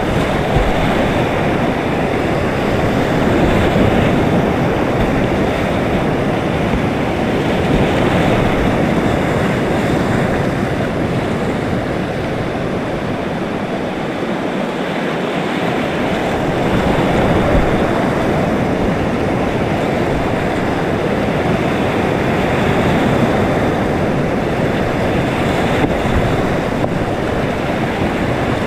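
Whitewater river rapids rushing: a loud, steady wash of water noise that swells and eases slightly every few seconds.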